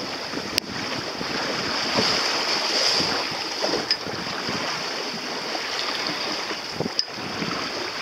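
Wind on the microphone and water rushing along the hull of a sailboat under way, a steady hiss, with two brief sharp clicks, one about half a second in and one near the end.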